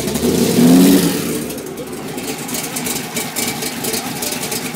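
Large supercharged engine of a custom motorcycle revving once in the first second, the pitch climbing, then settling back to a steady idle.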